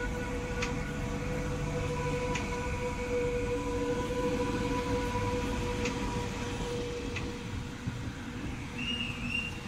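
SBB RABDe 500 ICN tilting electric train pulling out, its electric drive giving a steady whine that fades about seven seconds in, over the low rumble of the moving train, with a few sharp clicks.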